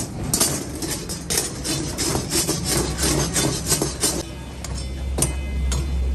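Rapid, irregular scraping and clattering of a metal ladle against steel karahi woks for about four seconds, over a steady low hum and background music.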